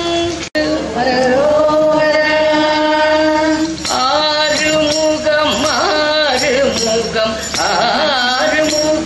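A group of women singing a Tamil Murugan bhajan through microphones: long held notes, then the melody moving in ornamented turns, with faint regular ticks keeping time. The sound cuts out for an instant about half a second in.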